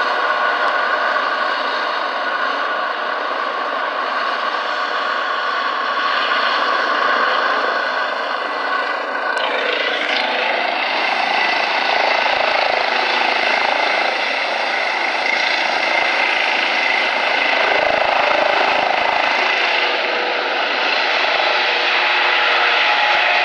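2006 Eurocopter EC135 T2+ helicopter's twin turbines and rotor running with a steady whine as it lifts off a helipad and climbs away. The tone shifts suddenly about ten seconds in.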